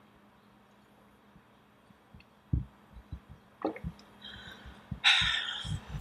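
A person drinking water from a tumbler: a few soft low thumps of swallowing and cup handling, then a short breathy exhale about a second before the end, the loudest sound.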